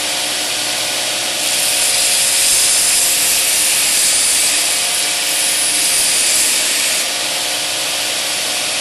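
Belt grinder running over its contact wheel while a hardened steel knife blade is pressed to the abrasive belt, grinding off the hard baked surface left by tempering. A steady motor hum sits under a rasping hiss that gets louder about a second and a half in and eases back around seven seconds.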